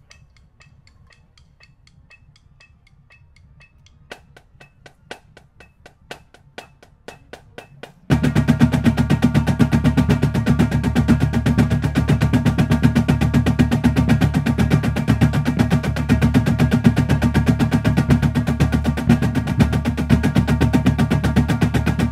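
Marching drumline warming up with snare drums and tuned bass drums. It opens with quiet, evenly spaced taps that grow louder over several seconds. About eight seconds in, the full line comes in loud with fast, dense snare strokes over low bass-drum tones.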